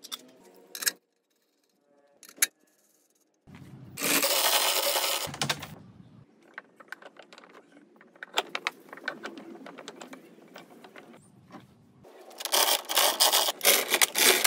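Scraping and clattering from hands-on workshop work. A short quiet gap is followed, about four seconds in, by a loud stretch of dense scraping noise, then scattered clicks, and a run of rapid clattering near the end.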